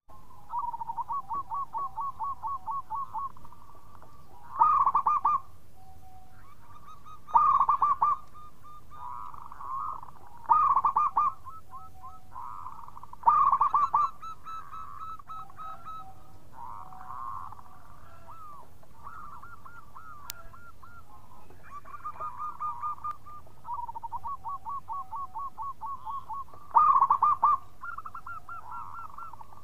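Zebra dove (perkutut) cooing: runs of rapid soft staccato coos alternate with louder short calls, four of these coming about three seconds apart in the first half and one more near the end.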